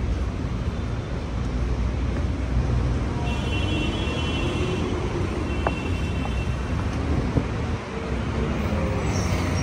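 Steady rumble of passing road traffic, cars and engines going by.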